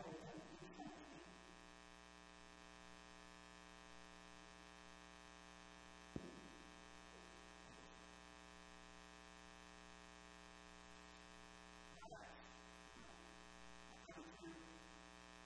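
Near silence over a steady electrical mains hum, with a single sharp click about six seconds in and a few faint knocks near the end.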